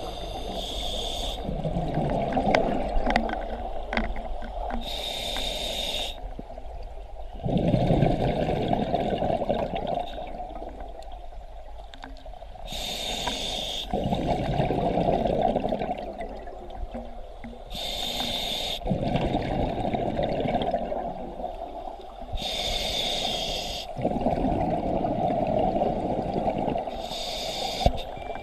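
Scuba diver breathing through a regulator underwater. Each breath starts with a short hiss as air is drawn in, followed by a longer rumble of exhaled bubbles, in a slow cycle about every five seconds.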